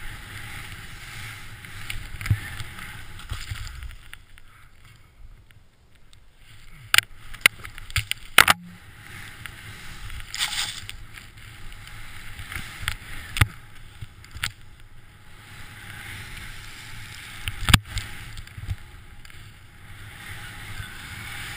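Snowboard sliding through deep powder snow: a steady rushing hiss that eases off briefly about five seconds in. Several sharp knocks break through it, a quick cluster a little before the middle and one loud knock about three quarters of the way in.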